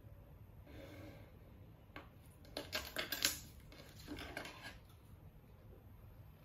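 Red craft paper being handled and slid about on a tabletop, with light taps of pencil and ruler. A quick run of sharp clicks and knocks comes about halfway through and is the loudest part.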